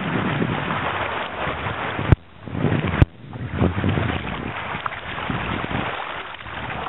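Sea water splashing and sloshing around a kayak being paddled, with wind rushing on the microphone. Two sharp clicks about two and three seconds in, each followed by a brief dip in the sound.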